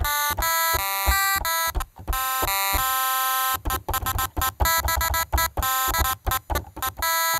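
Pulse-wave chiptune notes from an M5Stack running an NES-style 8-bit synth, played live from a MIDI keyboard: a phrase of separate held notes, then a quicker run of short notes from about three and a half seconds in.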